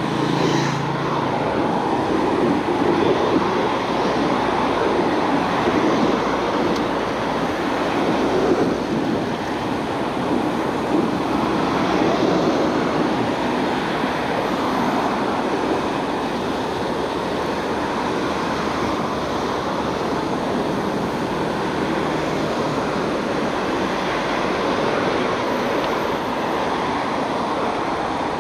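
Steady rushing noise of a moving bicycle: wind on the microphone and tyres rolling on the paved path. A motorcycle engine hums past close by in the first second or so.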